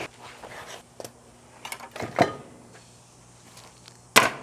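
Plastic side-release buckles on a canvas knife roll being unclipped and the canvas handled: a few sharp clicks and rustles. Near the end comes a louder sharp knock as the roll of knives is laid open on a wooden table.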